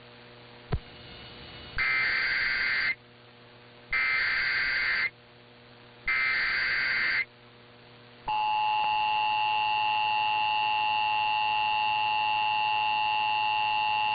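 Emergency Alert System SAME header: three bursts of screeching digital data, each about a second long and a second apart. From about eight seconds in, the steady two-tone EAS attention signal (853 and 960 Hz) sounds. A single sharp click comes under a second in.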